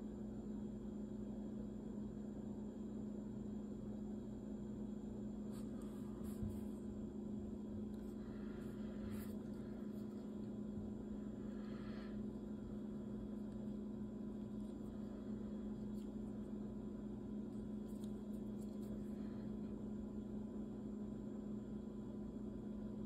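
Steady low electrical hum, with a few faint rustles and clicks of handling.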